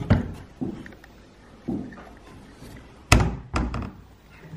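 A series of dull thuds and knocks, five in all, the loudest about three seconds in, like doors or cupboards being handled in a small room.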